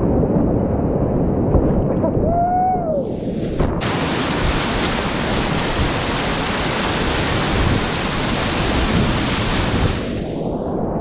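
Whitewater rapids rushing around a kayak, picked up by a camera on the boat. For the first few seconds the sound is muffled while the camera is in the water as the bow goes through a wave; the full, bright rush of the rapid cuts back in suddenly a little under four seconds in and runs on steadily.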